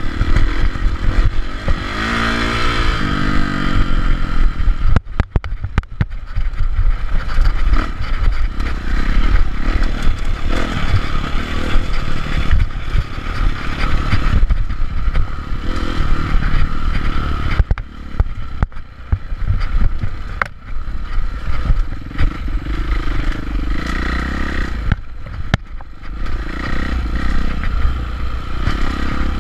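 Dirt bike engine running hard, revving up and easing off with the trail; the pitch climbs about two seconds in and drops off briefly around five seconds. Heavy rumble from wind on the bike-mounted camera, with knocks and rattles of the bike over rough ground.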